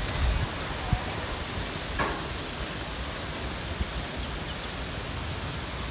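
Steady outdoor background noise with light wind in garden plants. There are a few low wind bumps on the microphone near the start and a faint click about two seconds in.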